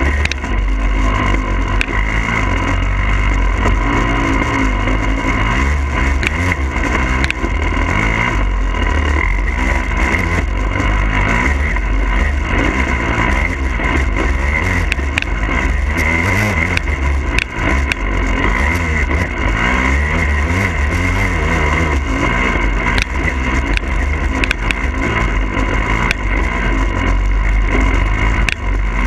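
Husqvarna TE300i two-stroke dirt bike engine being ridden, its revs rising and falling continuously under a heavy low rumble, with scattered short knocks.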